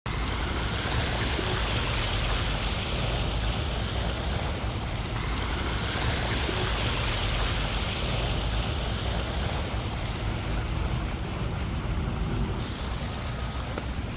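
Steady rushing noise of wind and water with a low, uneven rumble.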